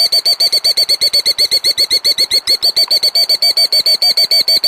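Killdeer giving its rapid alarm trill, a steady fast run of about a dozen shrill notes a second: the bird's alarm at someone approaching its nest.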